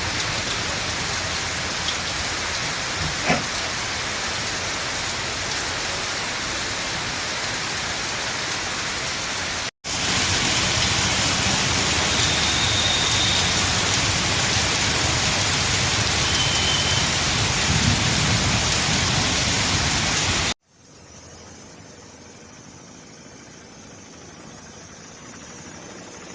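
Heavy rain falling, a steady dense hiss, in spliced clips. It cuts out for a moment about ten seconds in and comes back louder, then about twenty seconds in gives way to a much fainter hiss.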